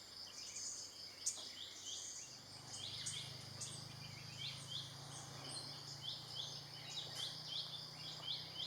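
Outdoor natural ambience: repeated short high chirps, a few a second, over a steady high insect drone, with a low steady hum coming in about two seconds in.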